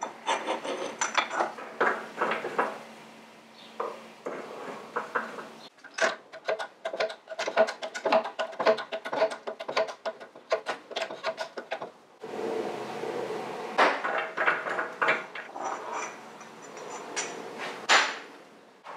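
Workshop handling noises: metal tools and motorcycle parts knocking, clicking and clinking. The sound changes abruptly three times, as if cut between short clips, with a dense run of quick clicks in the middle.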